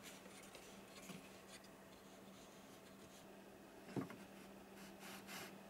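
Near silence with faint handling sounds as wooden clamps with threaded rods and round knobs are set into a woodworking jig. There is a light rubbing and scraping, one short knock about four seconds in, and a faint steady hum underneath.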